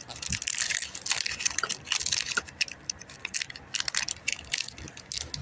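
Plastic packaging of a pack of Pokémon cards crinkling and crackling in irregular bursts as it is handled and torn open.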